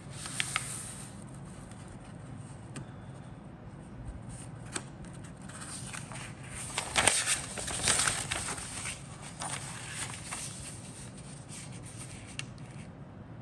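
A folded paper instruction sheet being handled and unfolded: paper rustling and crinkling with a few sharp snaps, loudest about seven to eight seconds in.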